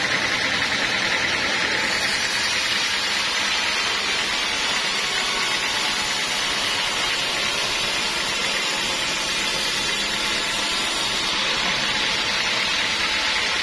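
Sawmill machinery running steadily, a constant loud hiss with no breaks or changes.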